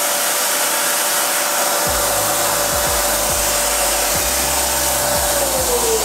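A Family Care 700 W bagless cyclonic vacuum cleaner running with a steady rushing noise and a high whine. About five seconds in, the whine starts to fall in pitch.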